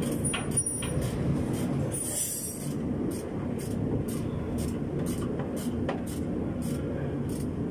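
Steady low rumbling noise of the workshop, with a faint high ticking about twice a second. A few light metallic clicks come from hand work on the underside of the drivetrain.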